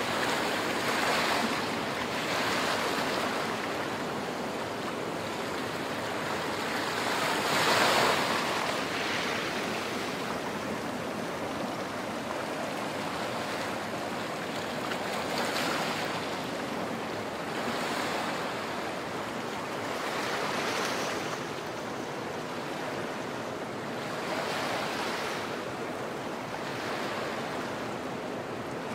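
Small waves breaking and washing up over sand and rocks at the water's edge, swelling in surges every few seconds, the strongest about eight seconds in.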